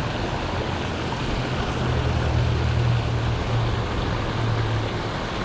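Steady rushing of a fast-flowing creek, with a low droning hum that comes in about a second and a half in and fades out near the end.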